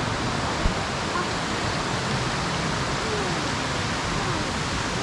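Steady rush of a waterfall and its stream, with one short low thump about half a second in.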